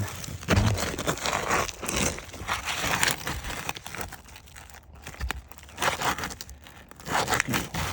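Irregular crackling, scraping and tearing of a brittle asphalt roof shingle being lifted and worked loose around its nails.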